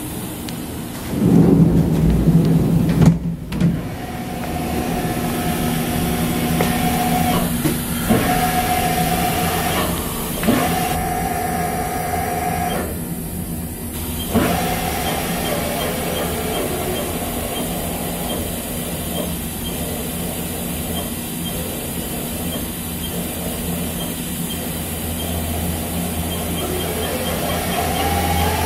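Haas VF-2B CNC vertical machining center running: a steady machine hum under several spurts of electric-motor whine that start and stop with sharp clicks, and a whine that rises in pitch near the end. A loud low rumble with knocks comes a second or two in.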